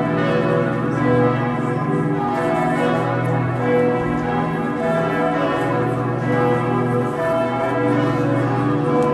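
Church bells pealing, several bells of different pitch ringing over one another without a break.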